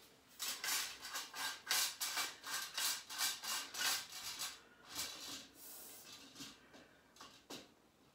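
Spring-tension shower curtain rod being worked into place between the walls, with quick, repeated rubbing and scraping strokes for about four seconds, then a few fainter scrapes.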